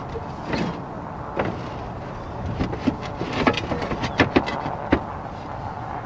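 Clay roof tiles clinking and knocking against each other as they are handled and set into place, a run of sharp clicks in the middle over a steady low background noise.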